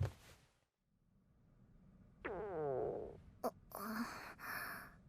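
Cartoon stomach-growl sound effect: a long gurgle falling in pitch about two seconds in, then a short click and two more noisy rumbles.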